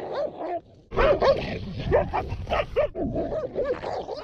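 Siberian husky and pit bull scuffling: rapid, overlapping barking, yelping and snarling. The noise breaks off briefly just before a second in, then comes back at its loudest. It is a dominance tussle of growls and snaps rather than a real attack.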